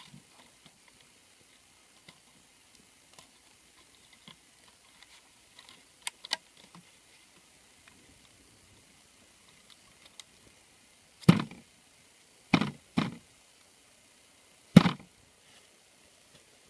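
Handling a grate of PVC pipes over a pit: faint clicks and taps, two sharp clicks about six seconds in, then four dull, hollow knocks over the next few seconds, the last one the loudest.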